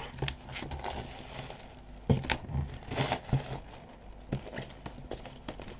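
Plastic shrink-wrap being peeled and crinkled off a vinyl record sleeve: irregular crackling rustles, with a few louder crinkles about two and three seconds in.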